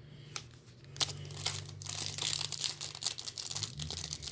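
A hockey card pack's wrapper being torn open and crinkled by hand: a single click, then from about a second in, a dense run of sharp crackles and tearing.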